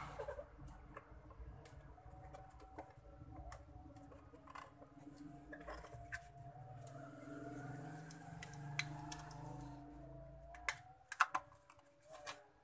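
Small plastic clicks and taps from a computer mouse being handled and worked on during a click-switch repair, with a cluster of sharper clicks near the end.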